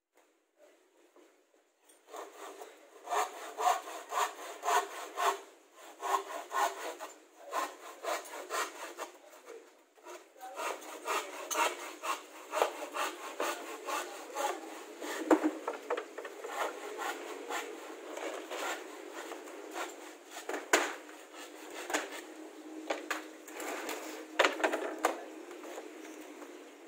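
Plywood being worked by hand: repeated scraping strokes of wood against wood starting about two seconds in, with a few sharp knocks as boards are handled.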